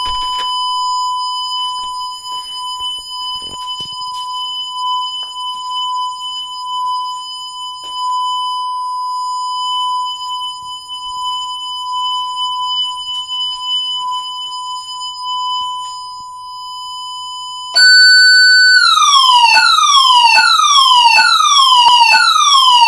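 Honeywell APEX Destiny alarm panel sounding its entry-delay warning, a continuous high steady tone. Near the end it gives way to the louder alarm siren: a brief steady tone, then repeated falling sweeps a little over once a second. The entry delay has run out without the system being disarmed, so it has gone into alarm.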